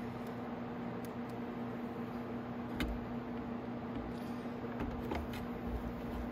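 A screwdriver turning machine screws into the plastic headlight housing, with a few light clicks of tool and plastic, over a steady low hum.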